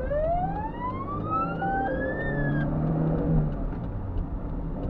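Fire engine siren wailing: one slow rise in pitch that cuts off about two and a half seconds in, over the steady hum of the truck's engine heard from inside the cab. A short two-note beep sounds partway through the rise.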